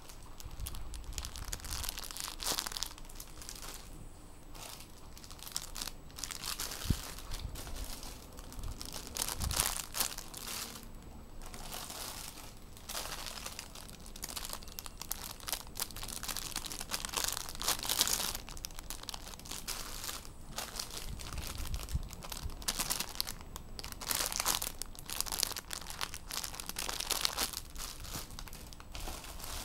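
Clear plastic bags around squishy toys crinkling as they are picked up and shuffled in a pile, in irregular crackly rustles, some louder than others.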